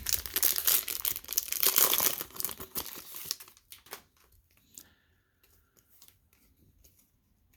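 A trading card pack wrapper being torn open and crinkled for about three seconds, followed by faint scattered clicks of handling as things go quiet.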